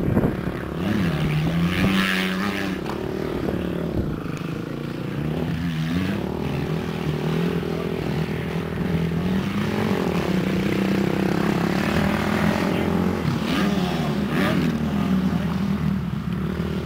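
Motocross dirt bike engine revving out on a track, its pitch climbing and then dropping sharply every few seconds as the rider opens and rolls off the throttle.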